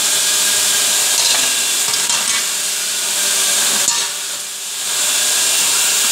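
Steady loud hiss that dips briefly about four seconds in, with a few faint clicks of steel flat bar being handled.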